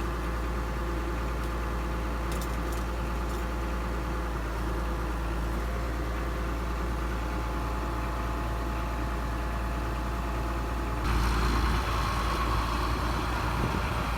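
Farm machine's engine idling steadily. It gets louder and fuller about eleven seconds in.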